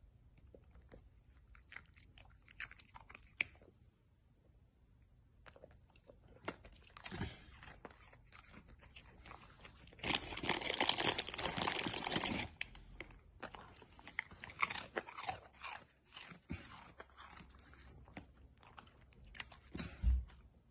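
A dog chewing and crunching something small, with scattered wet clicks and crackles and a louder run of crunching about ten seconds in that lasts a couple of seconds. A soft low thump near the end.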